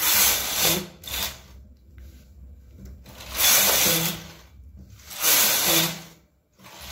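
Knitting machine carriage pushed back and forth across the needle bed, knitting rows. Each pass is a rasping slide of about a second, with three full passes a couple of seconds apart.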